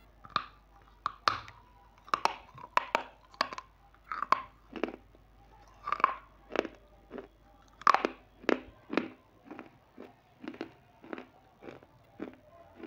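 Close-miked crunching as a crisp snack is bitten and chewed: a steady run of sharp crunches about two a second, growing softer over the last few seconds.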